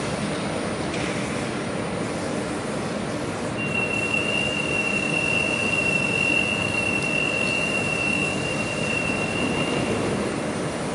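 Steady rushing drone from a powered-up standing train, with a thin high whistle held steadily from about four seconds in until near the end.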